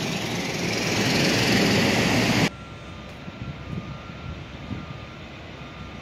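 A heavy truck going past with a loud, even rushing noise that cuts off abruptly about two and a half seconds in. It is followed by quieter construction-site background with the faint, repeated beep of a reversing alarm.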